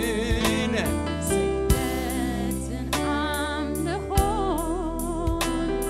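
Live Tigrinya gospel worship song: a singer holding and bending long notes with vibrato over a band, with steady bass and drum hits.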